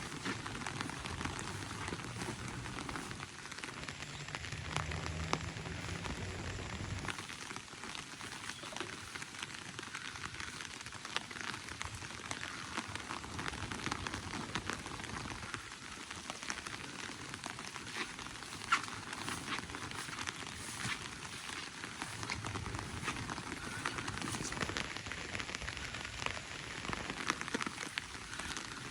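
Rain falling steadily, with many small drop ticks scattered through it. A faint low hum comes and goes twice.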